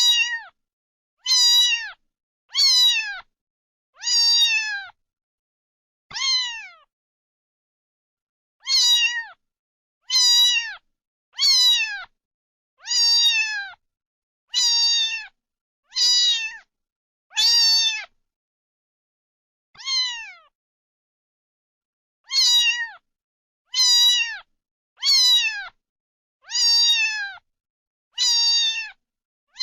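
Domestic cat meowing repeatedly: about nineteen short meows, each falling in pitch at the end, coming every second and a half or so in runs broken by brief pauses, with dead silence between calls.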